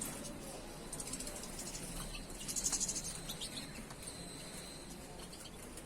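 Caged songbird chirping and twittering in high, quick notes, most densely about two and a half seconds in.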